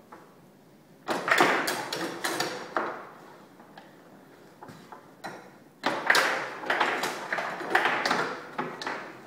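Table football game in fast play: quick runs of sharp plastic clacks and knocks from the ball, the players on the rods and the table walls. One burst starts about a second in, there is a quieter spell, and a second, longer burst starts about six seconds in.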